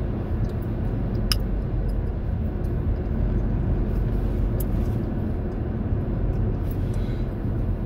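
Steady low road and engine noise inside a moving car's cabin, with a sharp click a little over a second in.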